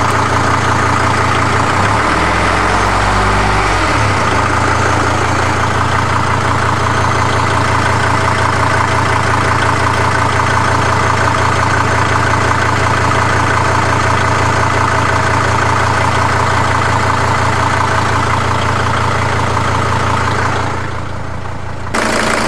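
Mercedes-Benz W210 E290's OM602 five-cylinder turbodiesel idling warm with a steady rhythmic knock. The owner can't place the knock, and is not sure it is real, but hears it getting louder as the engine warms. The engine note shifts briefly a couple of seconds in.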